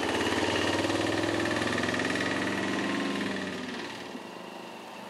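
Motorcycle engine running as the bike rides past, loud for the first three seconds or so, then fading as it moves away.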